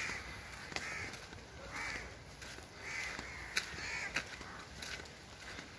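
A crow cawing repeatedly, a series of harsh caws about a second apart.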